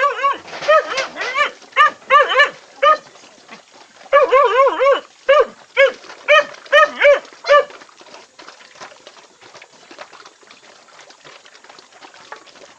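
A dog barking in rapid short yaps, in two runs with a brief pause about three seconds in, stopping about seven and a half seconds in; faint clattering follows.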